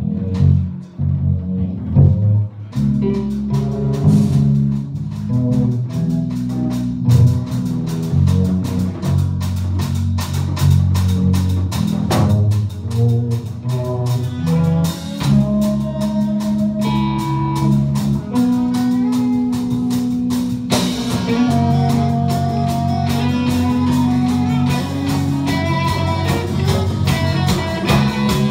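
Live band playing: electric guitar over a drum kit, with the drums coming in strongly about three seconds in.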